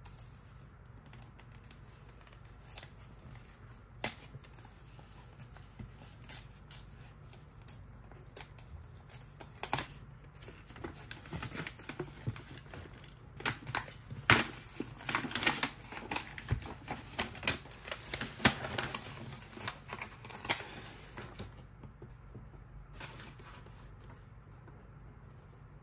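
Stiff white wrapping paper being handled and unfolded around a gift box: a few scattered taps and crinkles at first, then a busy stretch of paper rustling and crinkling from about ten to twenty seconds in, settling down again near the end.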